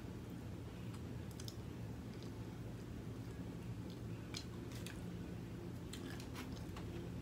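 A person chewing and biting into a fried chicken wing up close: scattered soft wet clicks and crackles from the mouth, a second or so apart, over a steady low background hum.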